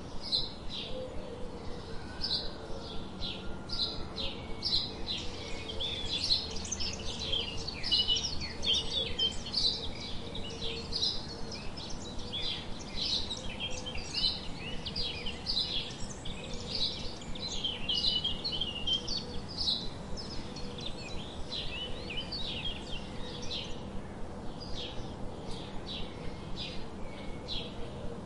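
A group of house sparrows chirping: a dense run of short, high chirps, several a second, busiest through the middle.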